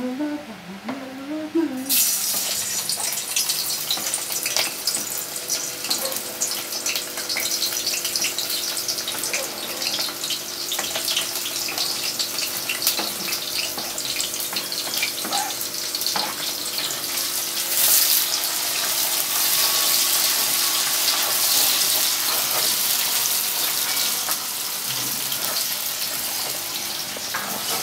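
Chopped vegetables dropped into hot vegetable oil in a pan, sizzling from about two seconds in and going on steadily as they are stirred, a little louder around the middle.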